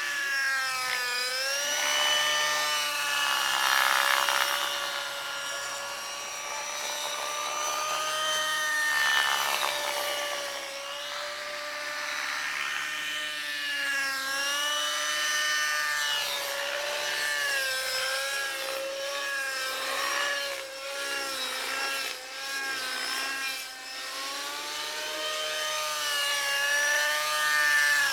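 Radio-controlled model helicopter flying aerobatics, a steady high motor-and-rotor whine that keeps rising and falling in pitch as it maneuvers. It swells louder a few seconds in, again about nine seconds in, and near the end.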